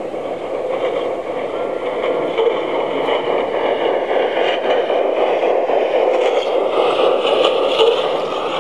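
Steady rolling and gear hum of an LGB G-scale model train running on outdoor track, getting a little louder near the end as a model steam locomotive passes close by.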